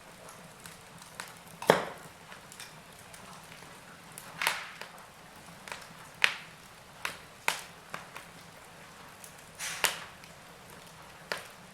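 Wood fire crackling in a fireplace: sharp, irregular pops and snaps every second or two over a soft steady hiss, the loudest pop about two seconds in.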